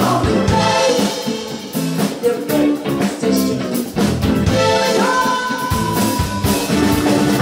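Live band music: a woman sings over electric guitar and a drum kit.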